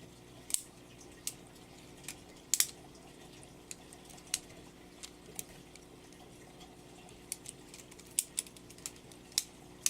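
LEGO butterfly knife being flipped by hand: its plastic brick handles and blade clack together in irregular sharp clicks, about fifteen of them, over a faint steady hum.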